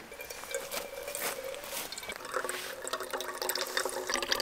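Filtered water trickling and splashing from a blue squeeze water filter into a metal Fire-Maple cooking pot, growing louder as the pot fills.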